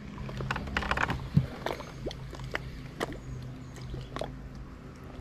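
Scattered light clicks and taps from fishing tackle and a small boat being handled, over a faint steady low hum.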